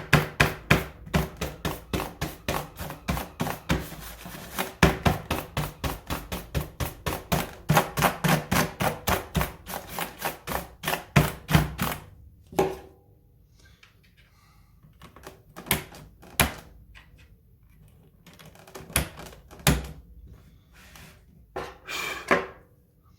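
Mechanical keyboard clattering: rapid clicks and knocks at about four a second for some twelve seconds, then a few scattered clicks.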